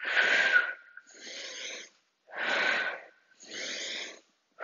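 A woman breathing hard through her mouth in time with her squats. Two strong exhales, each with a faint whistle, alternate with quieter inhales, about one breath cycle every two seconds.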